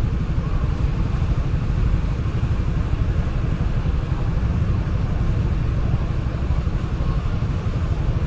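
Steady low rumble of motor traffic, idling and passing vehicles.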